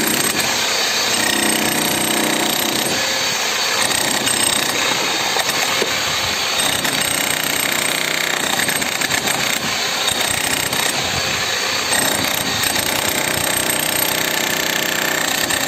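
An 11 kg DCK electric demolition hammer chiselling into cast concrete: a dense, steady rapid hammering with the crunch of concrete breaking away.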